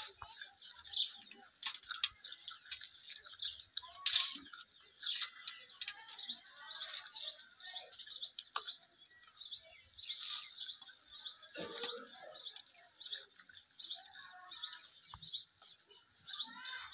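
A small bird chirping over and over, short high chirps about twice a second.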